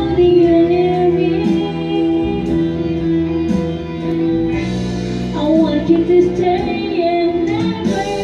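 Background music: a song with a singing voice over instrumental accompaniment.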